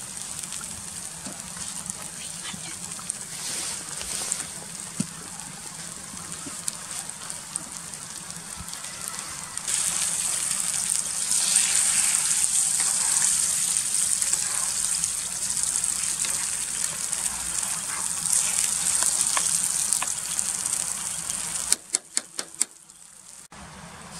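Eggs frying in oil and tomato paste in a steel pan over a grill, sizzling steadily; the sizzle grows louder about ten seconds in. A few sharp clicks near the end.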